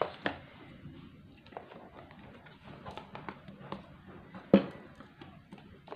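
Handling noise from a smartphone box and its packaging: a run of small clicks and knocks, with two sharp knocks at the start and one loud knock about four and a half seconds in.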